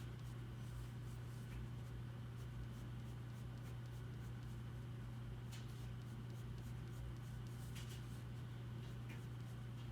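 Faint, scattered scratches of a drawing tool on paper, a few separate strokes over a steady low hum.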